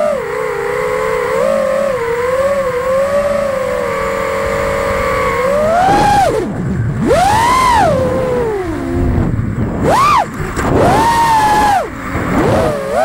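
Whine of an FPV racing quad's four brushless motors (T-Motor Pacer V3 2207 1750KV) spinning 5-inch props. The whine holds a fairly steady pitch for the first half. Then, from about six seconds in, it dives and climbs several times as the throttle is chopped and punched through freestyle moves.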